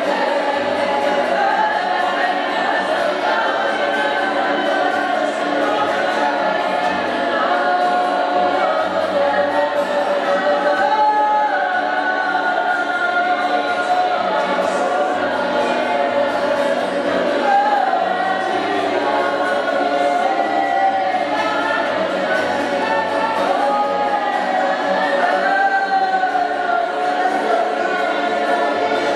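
A congregation singing together in worship, many voices holding long, sliding notes, with an acoustic guitar accompanying.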